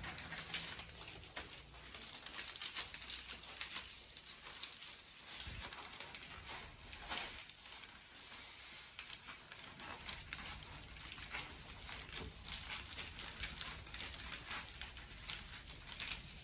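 Rain falling steadily, an even hiss with a dense, irregular patter of drops.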